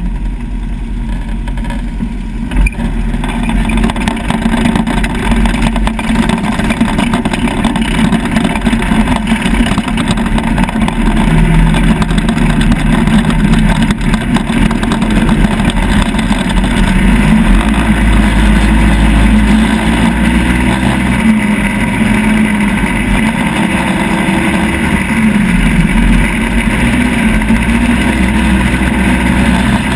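Off-road vehicle engine running under load, revving up and down repeatedly as it drives across sand dunes, with a steady rushing noise underneath. It gets louder about three seconds in as the vehicle pulls away.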